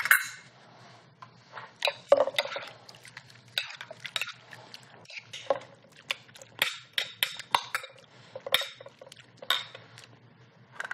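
Metal spoon stirring shrimp ceviche in a glass bowl, clinking against the glass again and again at an uneven pace.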